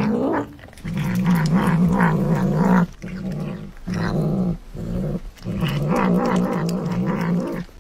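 Tabby cat growling while it eats: long, low, wavering growls broken by several short pauses.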